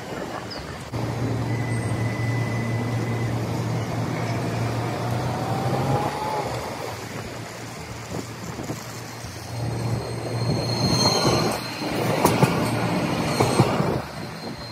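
Low-floor tram moving along street track: a steady low motor hum with a rising electric whine, then, as it passes close by near the end, its wheels clatter over rail joints and points and squeal.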